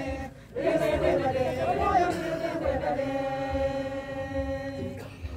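Church choir singing a Swahili hymn together, ending a phrase with a long held note that cuts off about five seconds in.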